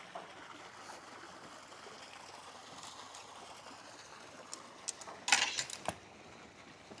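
Faint steady hiss, then a short cluster of sharp knocks and clicks a little over five seconds in.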